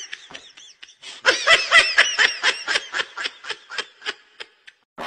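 High-pitched laughter: a long run of quick 'ha' pulses, about six a second, starting about a second in and trailing off shortly before the end.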